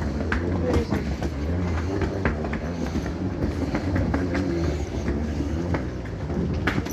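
Wheels of a rolling suitcase rattling over stone paving: a steady low rumble with irregular clicks and clacks from the joints between the stones.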